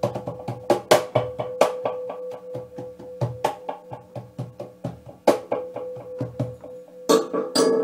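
Hand drumming on a cajón and snare drum: a fast run of quick strokes with louder accents every so often, over a steady held tone. Near the end a brighter, splashy hit rings on.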